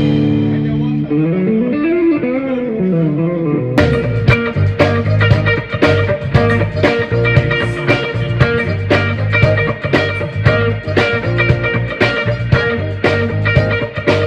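Live band with electric guitar playing a bluesy rock number. A held chord rings with a sliding, wavering line for the first few seconds, then the full band comes in with a steady beat about four seconds in.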